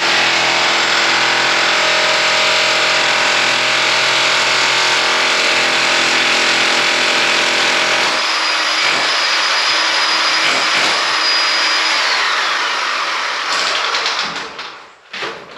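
A loud motor-driven machine running steadily, its tone changing about halfway through; near the end a high whine falls in pitch and the machine winds down.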